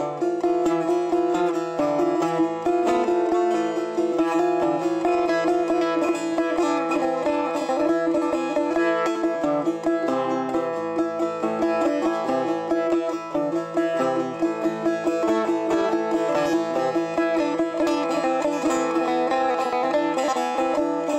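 Instrumental music on a plucked string instrument, with a held note under a steady run of plucked notes.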